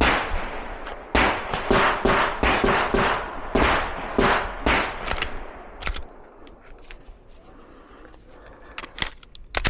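Pistol shots fired in a quick string, about ten over five or six seconds and each with an echo, followed by a few faint clicks.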